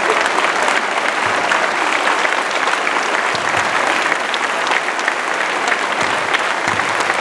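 Large crowd clapping steadily in a sports hall: a sustained standing ovation.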